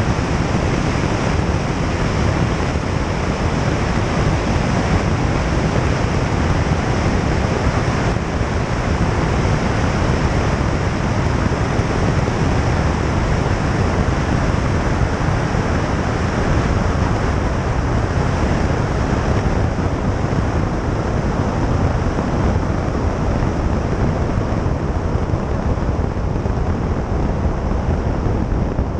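Steady wind rush over an exterior tail-mounted camera's microphone, mixed with the low drone of the Piper Tomahawk's engine and propeller during landing and rollout.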